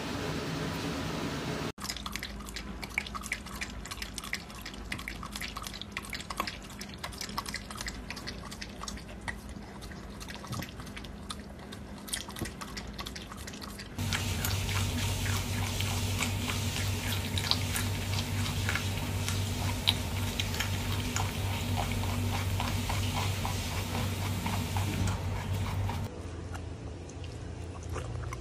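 A run of quick small clicks in the first half. About halfway through, a rabbit chews greens close to the microphone: rapid crunching clicks over a steady low hum.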